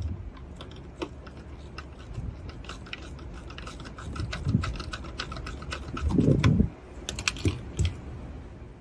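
Socket ratchet with a 10 mm socket clicking in short runs, several clicks a second, as the nut on a car battery's positive terminal clamp is loosened. A few dull knocks come in between, and a quick flurry of clicks near the end.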